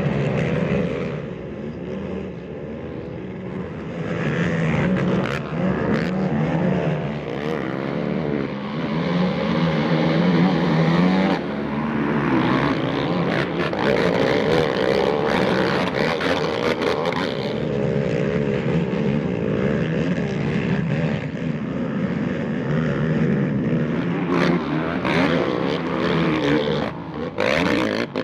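Racing ATV engines revving up and down continuously as several quads ride the motocross track, the pitch rising and falling with the throttle.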